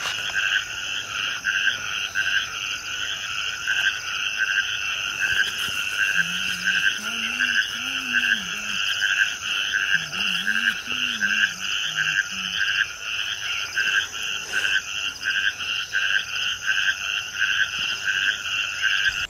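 A steady chorus of calling frogs, pulsing evenly about two times a second, over a constant high-pitched hiss.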